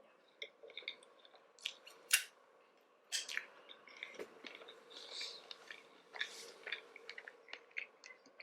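A person chewing a mouthful of sushi close to the microphone: irregular wet mouth clicks and smacks with a few brief hissy bursts.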